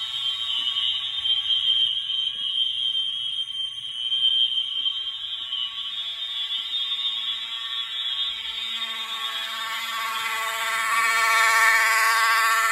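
Fire alarm system in alarm after a pull station has been pulled: several horns sound at once. One holds a steady, high continuous tone near 3 kHz, and a lower horn tone grows louder over the last few seconds.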